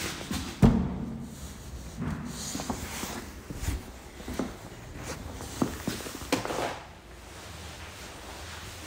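Footsteps on a tiled floor with a plastic carrier bag rustling, and a single heavy thump about a second in.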